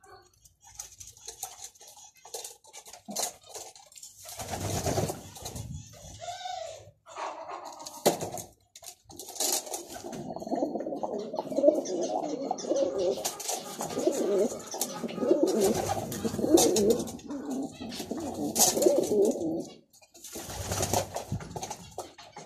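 Racing pigeons cooing: low, warbling coos, with a long unbroken run of cooing through the middle of the clip. There is a short burst of noise about four seconds in and another near the end.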